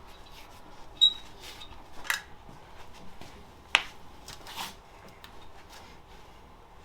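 Scattered light metallic clinks and knocks as metal parts and tools are handled, a brief ringing clink about a second in and a sharp click a little before the four-second mark.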